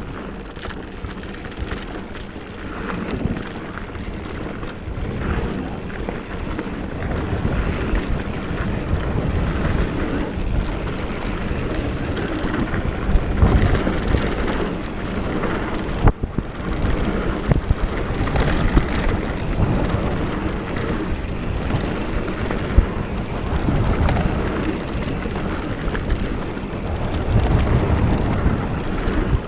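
Mountain bike riding downhill on hard-packed dirt singletrack: steady wind buffeting on the camera microphone over the rumble of the tyres. Now and then there are sharp knocks as the bike hits bumps.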